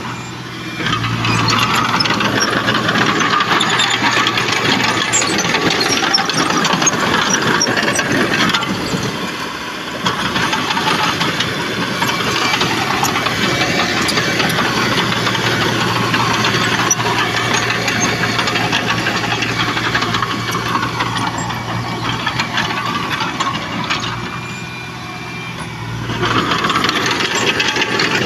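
Diesel engine of a Komatsu D31PX crawler dozer running under steady load, with metallic rattling from the tracks. It goes quieter for a moment three times, about a second in, about ten seconds in and near the end.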